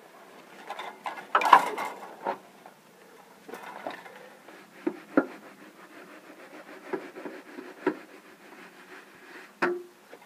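A 6-foot metal stud used as a screed, sliding and scraping across wet concrete and along the metal form edges while the floor is levelled. There are irregular rubbing scrapes, loudest about one and a half seconds in, and a few sharp knocks later on.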